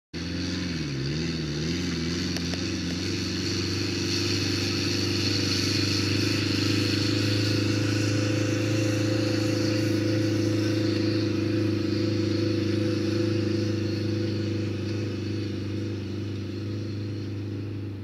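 Frazier Agri-Buggy self-propelled crop sprayer running across the field while spraying: a steady engine hum whose pitch wavers in the first couple of seconds. It fades as the buggy drives away near the end.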